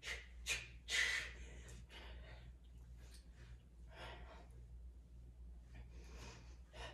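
A woman breathing hard with exertion while pressing a dumbbell in fast pulses: three sharp breaths in the first second, then softer, spaced-out breaths.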